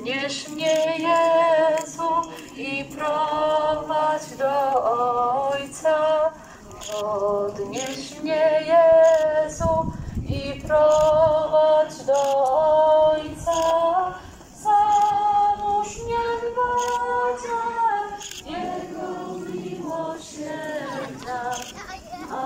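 A group of voices, mostly women's, singing a church hymn together in phrases of held notes with short breaks between them.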